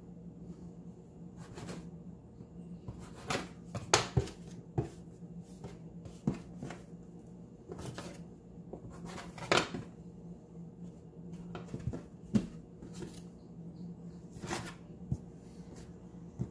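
Plastic dough scraper knocking and scraping on the countertop as bread dough is cut into portions, with soft thuds as pieces are set down: irregular sharp knocks, the loudest about four seconds in and near the middle.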